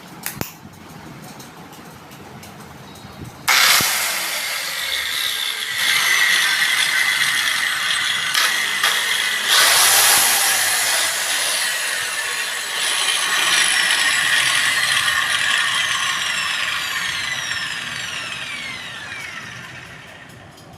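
DeWalt angle grinder test-run: a couple of clicks, then the motor starts suddenly with a loud high whine and runs at speed, its pitch falling as it spins down near the end. The run follows a carbon brush and switch replacement.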